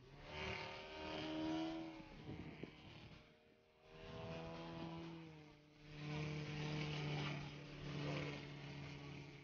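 Radio-controlled propeller aerobatic plane flying overhead, its engine and propeller drone swelling and fading three times as it passes and manoeuvres, the pitch shifting with each pass.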